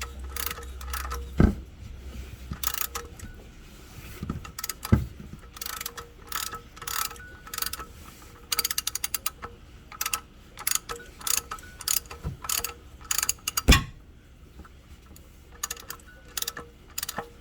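Ratchet wrench clicking in short runs while the oil filter housing cap is tightened after being snugged by hand, with a few louder knocks of the tool against the housing.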